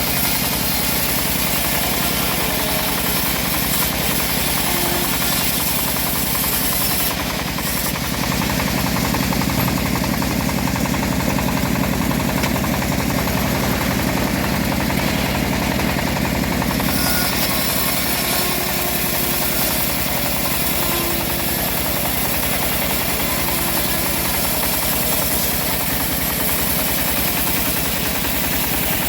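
Home-built engine-driven bandsaw sawmill running steadily while sawing old teak, its tone shifting for several seconds midway.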